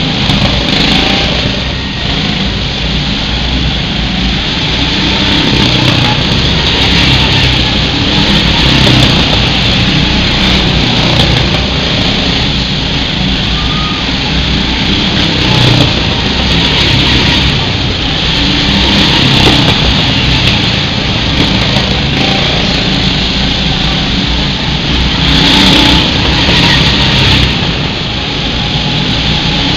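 Several go-kart engines running loud as the karts lap and pass close by, the sound swelling and easing every few seconds as each kart goes past.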